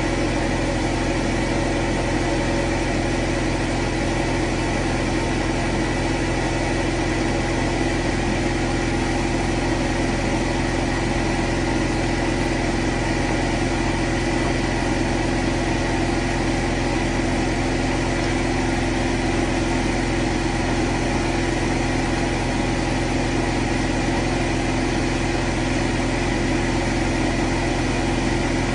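A steady, unchanging hum that keeps the same level throughout, with no knocks or breaks.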